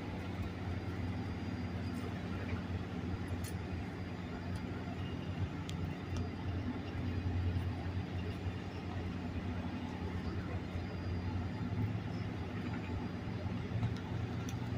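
Metrolink Arrow diesel multiple units idling at the platform: a steady, low engine hum with a few faint ticks.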